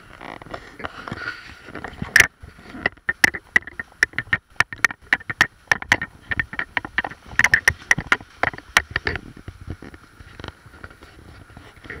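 Footsteps and knocks on a handheld GoPro while walking on a paved path: a rapid, uneven run of sharp clicks and taps, busiest from about three to nine seconds in.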